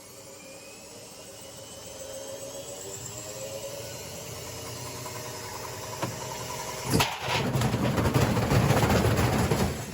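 Washing machine spinning up, its motor whine rising in pitch and growing louder; about seven seconds in a sudden loud bang, then heavy continuous banging and rattling.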